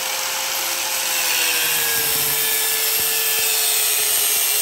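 Electric angle grinder with an abrasive disc grinding the end of a metal tube held in a vise: a steady motor whine over a harsh grinding hiss, the motor note sagging slightly about a second and a half in as the disc bites.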